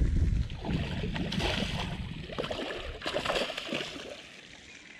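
A hooked traíra (trahira) thrashing at the water's edge, water splashing and sloshing in irregular bursts that die down about four seconds in.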